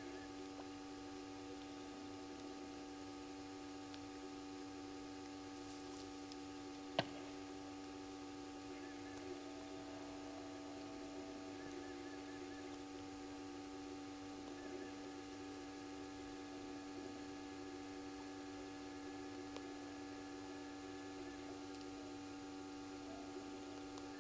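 Steady electrical mains hum with several held tones, over faint background hiss. A single sharp click about seven seconds in, and a few faint, short, high chirps now and then.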